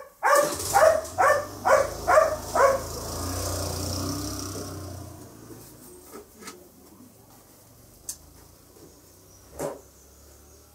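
A dog barking repeatedly, about two barks a second, for the first two or three seconds. Under it a vehicle passes, its low engine rumble swelling and fading out by about five seconds in. After that there are only a few faint clicks.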